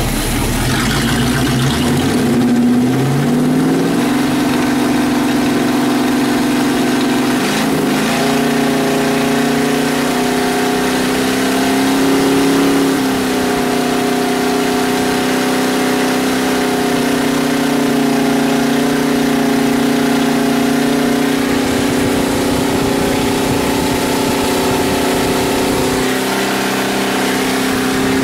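Chevy 350 small-block V8 running; it revs up from idle over the first few seconds, then holds steady at a raised speed.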